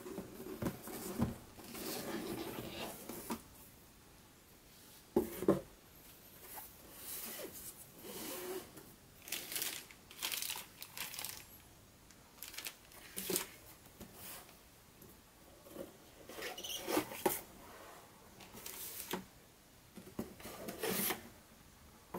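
Cardboard box and plastic packaging being handled: irregular crinkling and rustling of a plastic bag and cardboard, with a few sharp knocks of the box and its inserts, the sharpest about five seconds in.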